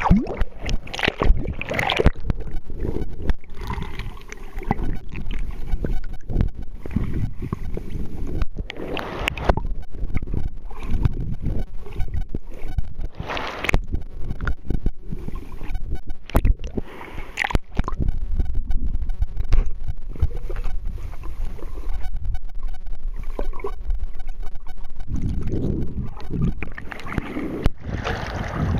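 Underwater sound picked up by a camera held below the sea surface: a muffled low rumble of moving water, broken by many sharp clicks and knocks. Near the end the camera comes back up through the surface into splashing water.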